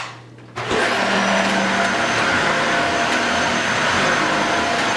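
Dyson Ball Multifloor 2 upright vacuum switching on about half a second in. Its motor spins up with a rising whine, then runs steadily as it is pushed over carpet.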